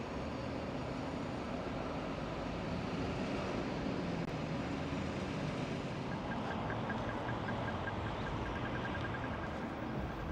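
City street traffic: cars passing and a steady traffic hum. About six seconds in, a rapid high-pitched pipping starts and keeps going.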